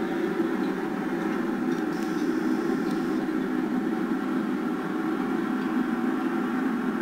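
Portable dehumidifier running: a steady low hum that does not change.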